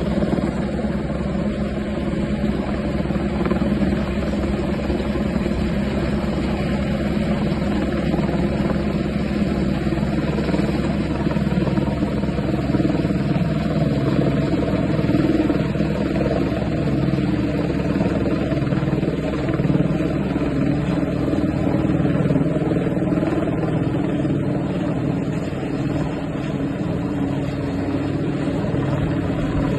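Helicopter running steadily: a constant, loud rotor and engine rumble that holds level throughout.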